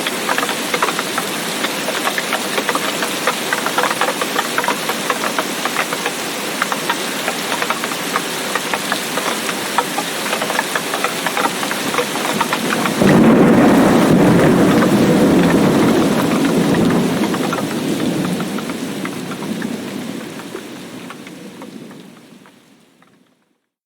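Heavy tropical rain falling densely, with many close drop ticks. About thirteen seconds in, a loud thunderclap breaks in suddenly and rumbles away over several seconds, while the whole storm fades out to silence near the end.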